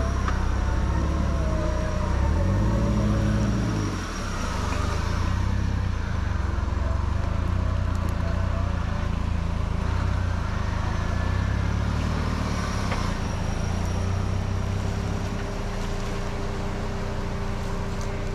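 Small off-road 4x4's engine running at low revs as it crawls through a water-filled ditch, revving up about two seconds in and easing off around four seconds, then running steadily.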